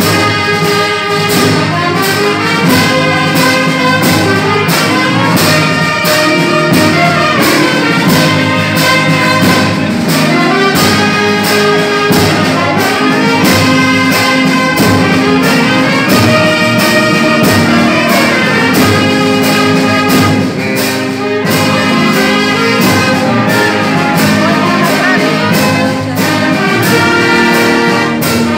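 Amateur wind band of saxophones, clarinets and brass with a sousaphone playing an instrumental piece together over a steady beat.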